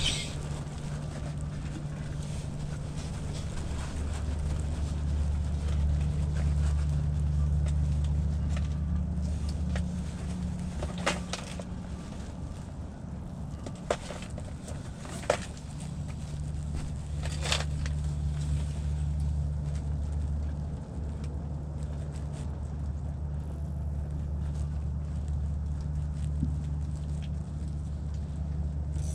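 Strong wind rumbling and buffeting on the microphone, swelling for several seconds near the start, with a few sharp clicks or taps in the middle.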